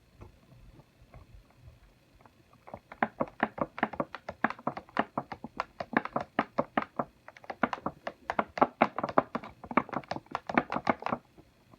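A rapid run of sharp taps and clicks, about five a second, starting a few seconds in and stopping shortly before the end, with a couple of brief pauses.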